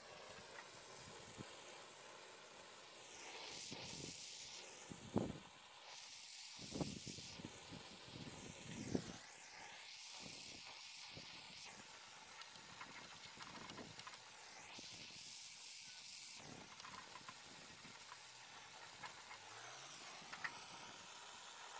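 Handheld gas torch flame hissing as it heats the radiator tank's soldered mounting bracket, swelling and fading as the flame is moved. A few short knocks come in the middle.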